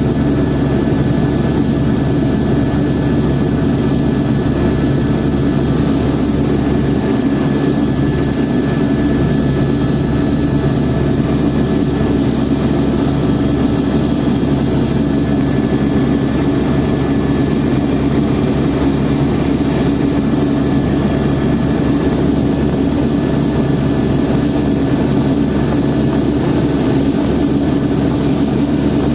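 Helicopter in flight: a steady, unchanging drone of engine and rotor with a constant high whine over it.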